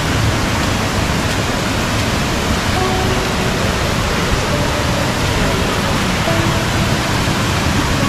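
Steady, loud rush of a large waterfall and its rocky stream in full monsoon flow.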